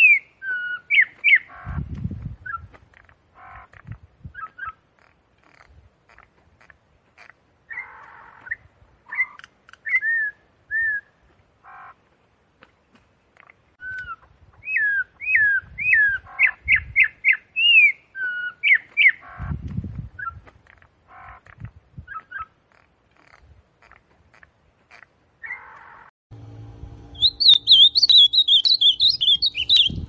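Campo troupial (corrupião) singing: bouts of quick rising whistled notes repeated with pauses between them, with a couple of low thumps. Near the end another bird takes over with a fast, high warbling song over a steady hum.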